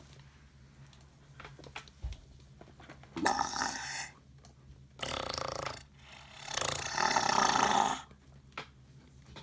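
Clear slime being squeezed and pressed so that trapped air escapes in three fart-like squelches: a short one about three seconds in, another about five seconds in, and a longer one from about six and a half to eight seconds, with faint clicks between.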